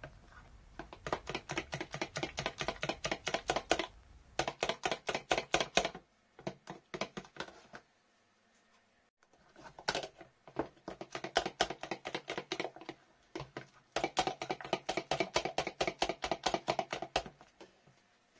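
Metal spoon beating batter in a plastic food container, clicking against the sides and bottom several times a second, in bursts with short pauses between.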